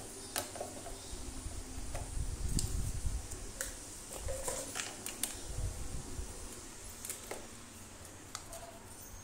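A standing fan's metal wire guard is handled and fitted around the motor hub, giving scattered light clicks and taps with a few low handling bumps.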